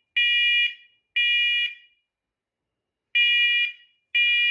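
First Alert SCO500 smoke and carbon monoxide alarm sounding its test alarm: loud, high-pitched half-second beeps in the smoke-alarm three-beep pattern. The last two beeps of one group come a second apart, then a pause of about a second and a half, then the first two beeps of the next group.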